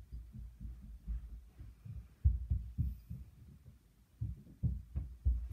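Footsteps moving about the house, heard as muffled, irregular low thuds a few times a second, loudest about two seconds in and near the end.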